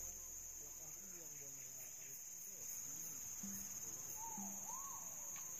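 Steady, high-pitched drone of insects. Faint swooping tones and short low notes come in underneath from about halfway through.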